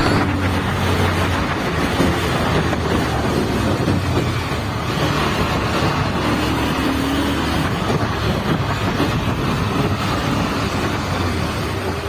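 Bajaj Pulsar 220F's single-cylinder engine running steadily as the motorcycle is ridden, with wind and road noise on the microphone.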